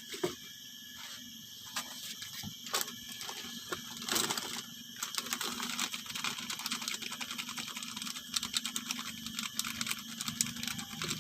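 Irregular clicking and crackling handling noises, louder for a moment about four seconds in, over a faint steady high-pitched drone.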